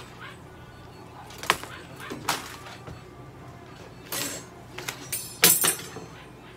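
A cat's clear plastic Elizabethan collar knocking and scraping against a steel exam table as the cat is handled and settled, a few separate sharp knocks with the loudest about five and a half seconds in.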